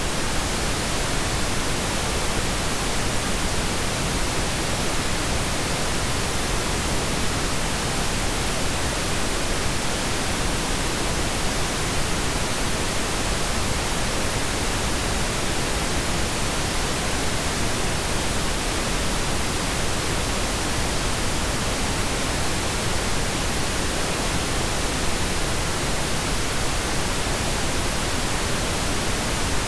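A steady, fairly loud hiss of even noise, covering low and high pitches alike, with no other sound in it.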